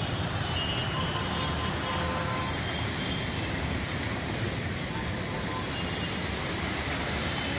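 Small fountain jets splashing into a shallow pool, a steady hiss of falling water.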